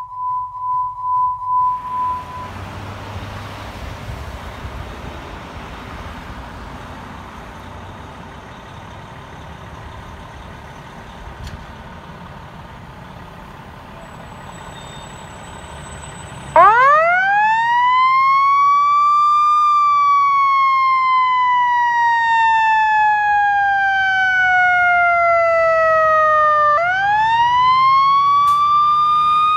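A pulsing beep tone for the first two seconds, then a fire engine's diesel running as the truck pulls out. About halfway through, its mechanical Q siren winds up with a fast rising wail, coasts slowly down, and winds up again near the end.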